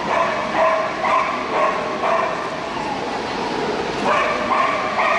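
Handler's squeaky toy squeaked again and again in short, flat-pitched squeals about half a second each, to catch the show dogs' attention, with a pause in the middle before it starts again about four seconds in.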